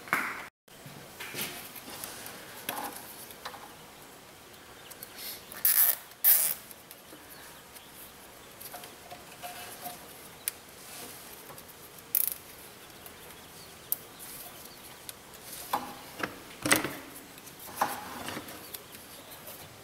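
Hands working a wiring harness and zip ties: irregular rustling with scattered sharp clicks and snaps, loudest about six seconds in and again near the end.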